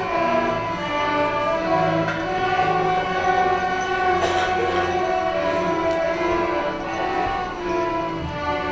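Student ensemble performing a song: held notes sounding together in chords, moving from one chord to the next.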